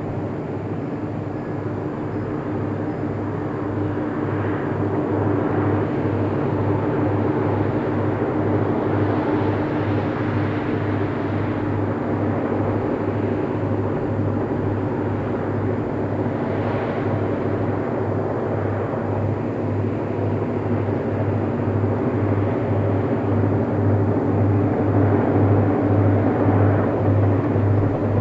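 SNCF BB 67000-family diesel locomotive hauling a passenger train: a steady engine drone with a regular low throb of about two beats a second, growing louder near the end as it draws nearer.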